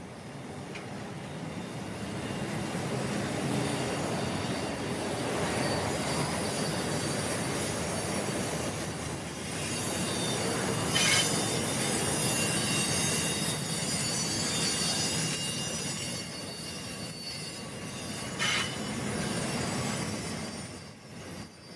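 Freight wagons rolling past on curved track: a steady rumble of steel wheels on rail with thin, high wheel squeal. Two sharp clanks ring out, one about halfway through and one a few seconds before the end.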